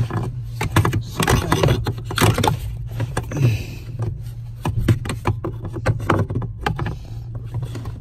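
Irregular plastic clicks and knocks, with a brief scrape about three and a half seconds in, as a new accelerator pedal assembly is handled and offered up to its mounting stud. A steady low hum runs underneath.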